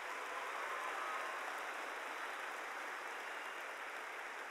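Large audience applauding and cheering, a steady, even wash of clapping with a few faint shouts mixed in.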